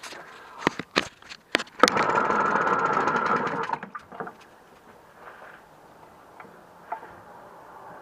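Seagull two-stroke outboard motor being pull-started: a few sharp clicks and knocks, then the motor fires and runs rapidly for about two seconds before it stops.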